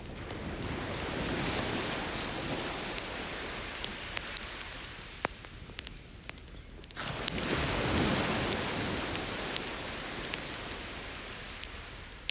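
Ocean waves washing onto a beach, two surges of surf, the second coming in suddenly about seven seconds in, with a bonfire's logs crackling in sharp pops throughout.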